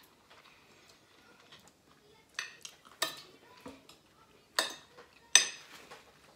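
Metal spoon and fork clinking and scraping against ceramic dinner plates while eating: a few sharp clinks spread across the moment, with quiet between them.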